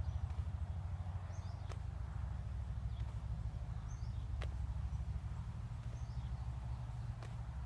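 Wind buffeting the microphone, a steady low rumble, with a few faint short bird chirps and occasional soft ticks.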